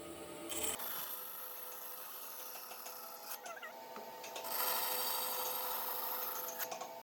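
Rasping, scraping sound of a tool worked against wood, with a faint steady hum under it. The sound changes abruptly about a second in and again past halfway, where it gets louder.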